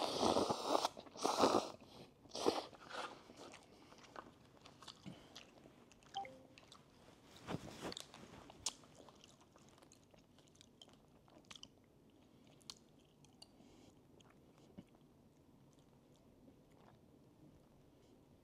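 A person eating noodles from a cup with chopsticks, close to the microphone: three loud mouthfuls in the first three seconds, then quieter chewing with small clicks.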